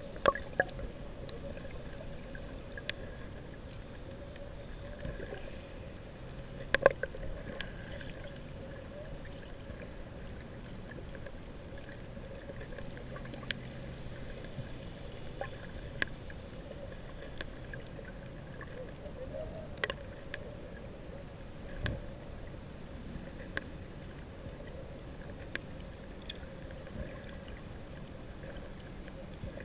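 Muffled underwater sound picked up by a camera below the sea surface: a steady hiss and hum of the water, with scattered sharp clicks and taps, the loudest about 7 and 20 seconds in.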